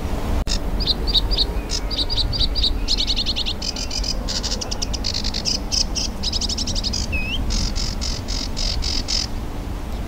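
Sedge warbler singing its long, varied song: a run of repeated whistled notes, then fast buzzy trills and chatter, stopping about nine seconds in. A steady low rumble lies underneath.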